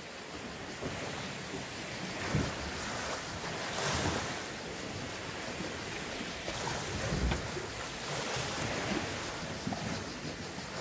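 Sea waves washing and lapping, with wind buffeting the microphone; the wash swells and eases every couple of seconds.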